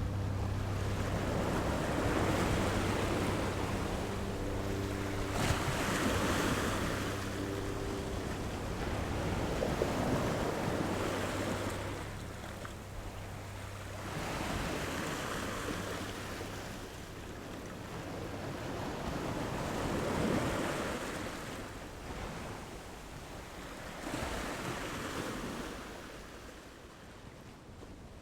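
Ocean waves breaking and washing up a shore, a surge of surf every four to five seconds, dying away toward the end. A low steady hum runs under the first few seconds and is gone about a third of the way in.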